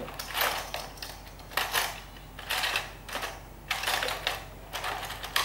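Handling noise at a netbook repair: a run of short clattering, rustling knocks, roughly one a second, as a small tool is picked up and brought to the keyboard.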